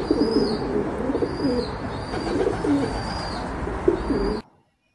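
A flock of feral pigeons cooing, many coos overlapping over a steady low rumble. The sound cuts off suddenly about four and a half seconds in.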